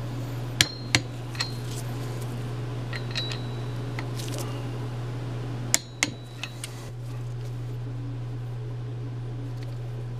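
Click-type torque wrench clicking as the connecting-rod bolts are torqued in stages: two sharp clicks with a slight metallic ring about half a second in, fainter ticks around three seconds, and another sharp pair near six seconds. A steady low hum runs underneath.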